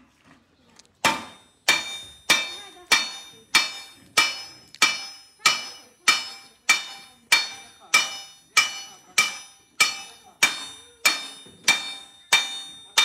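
Coppersmith's hand hammer beating a copper sheet laid over a wooden beam: steady, evenly paced blows, a little over one and a half a second, each with a brief metallic ring. The hammering starts about a second in.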